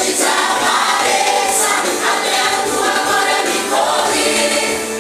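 Christian worship song: a group of voices singing together over band accompaniment.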